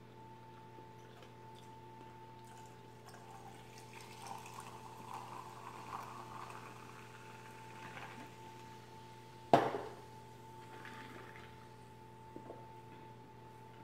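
Ginger sparkling water poured from a can into a glass, fizzing, then one sharp knock about two-thirds of the way in.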